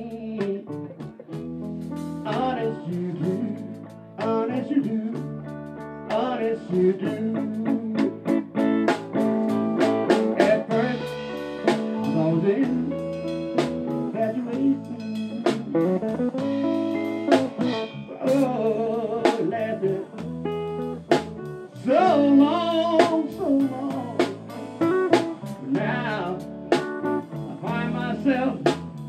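Live blues band playing: electric guitar picking bending lead lines over bass and a drum kit's steady beat.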